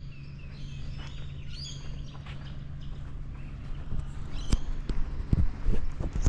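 Birds chirping and calling over a steady low hum. Several dull thumps or knocks come in the second half and are the loudest sounds.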